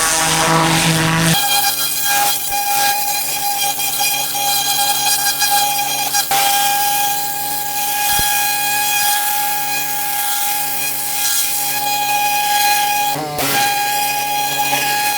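Pressure washer running and spraying: a steady machine whine over the hiss of the water jet. The pitch changes about a second in and dips briefly near the end.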